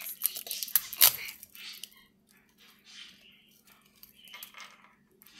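Plastic wrapping and tape crinkling and crackling as they are pulled off a small plastic toy treasure chest, with several sharp clicks in the first second and quieter rustling after. A faint steady hum runs underneath.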